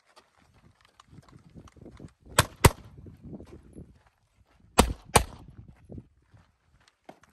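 Pistol fired four times, in two quick pairs a little over two seconds apart. Between and before the shots come the footsteps of a person running on a dirt trail.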